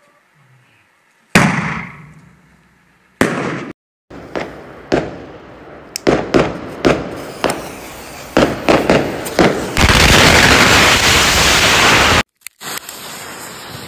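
Firecrackers exploding. One loud bang with a long fading echo comes about a second in, then more single bangs, then a quickening run of sharp cracks. These merge into a dense continuous crackle of many firecrackers going off together, which cuts off suddenly near the end.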